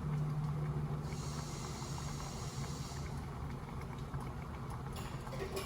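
Tap water running into an empty pasta-sauce jar for about two seconds, over a steady low hum.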